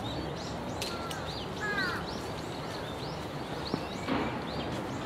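Small birds chirping over steady outdoor background noise: short rising-and-falling chirps repeating every fraction of a second. A single sharp click comes a little past halfway, and a brief louder noise follows about four seconds in.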